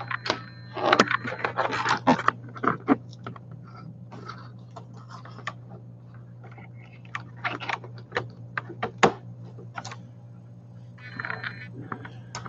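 Scattered short scrapes, rubs and clicks from a person moving about and handling a large inflatable vinyl horse, with a steady low hum underneath.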